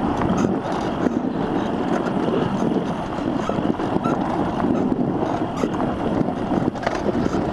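Dirt bike engine running steadily while riding along a gravel trail, with wind buffeting the microphone.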